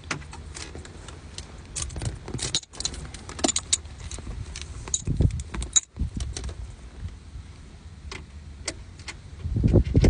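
Irregular metallic clicks and clinks of hand tools and loose bolts being handled, with louder bumping and rustling near the end.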